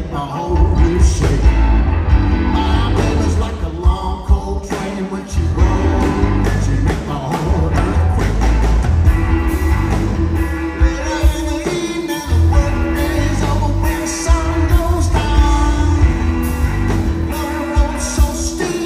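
Live rock band playing: electric guitars, drums and keyboard, with a male lead vocal.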